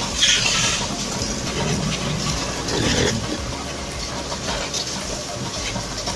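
Pressure-washer water spray hissing against a scooter, swelling in gusts about a second in and again around three seconds in, over a steady low hum.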